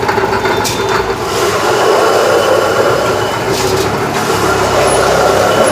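Motor-driven commercial wet-grinding machine running steadily as soaked rice is fed in and ground into idli batter.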